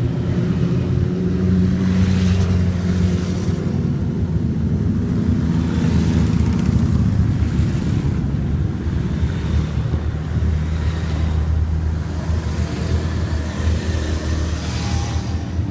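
A column of motorcycles riding past one after another at low speed. The engines run continuously, and the sound swells and fades every few seconds as each bike passes close by.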